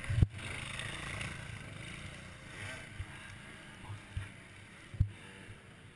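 Dirt bike engine and rumble, muffled through a sealed helmet-camera housing, slowly fading, with a few dull knocks, the strongest about five seconds in.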